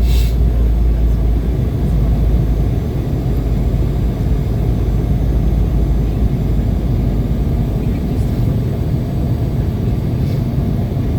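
Steady low rumble of engine and airflow noise inside the cabin of an Embraer 190 airliner, with a short hiss right at the start.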